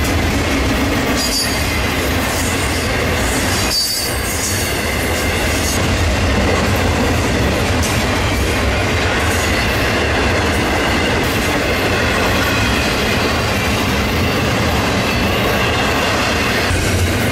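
Freight cars of a long Florida East Coast Railway train rolling past: a steady loud rumble and rattle of steel wheels on the rails, with brief high wheel squeals about one and four seconds in.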